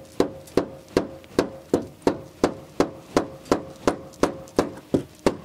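Hand tools striking metal in an even rhythm, about three blows a second, with a faint ringing tone under the first five seconds: a screwdriver being hammered at seized wheel-arch liner screws and clips that will not come out.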